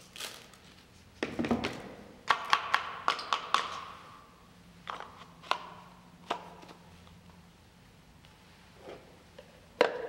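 Plastic dust bin and filter of a Novete handheld vacuum being handled and knocked while emptied over a plastic wastebasket: a string of sharp clicks and knocks with a short hollow ring, bunched from about one to four seconds in, then a few scattered taps.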